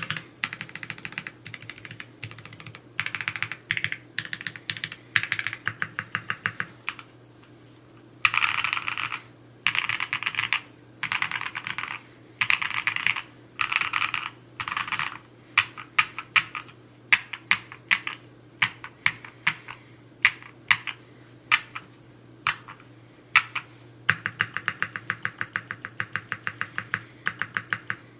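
Typing on a Neo65 Cu mechanical keyboard: runs of fast keystrokes broken by short pauses, with slower, separate, louder strokes in the middle.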